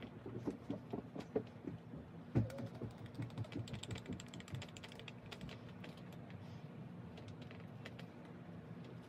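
Hands handling and twisting locs into a bun: rustling and scattered small clicks, with one louder knock about two and a half seconds in and a quick run of fine clicks just after.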